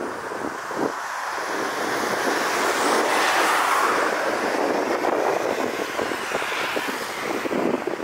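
A car passing close by on a city street, its tyre and engine noise swelling to a peak about three to four seconds in and then fading, over the steady sound of traffic.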